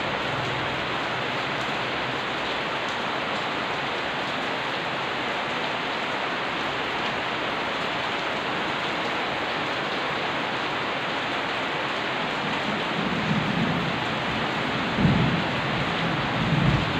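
Steady rain falling throughout. In the last few seconds a low rumble of thunder builds under it, swelling twice near the end.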